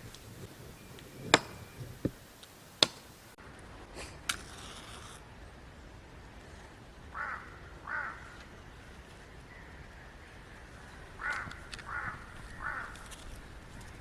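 A few sharp knocks in the first seconds, the loudest about a second in. Then a crow caws several times: twice near the middle and three times in quick succession near the end.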